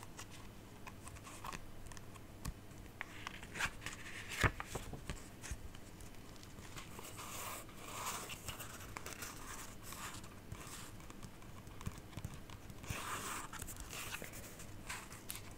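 Crinkling and rustling of paper or plastic being handled, with scattered light clicks and taps.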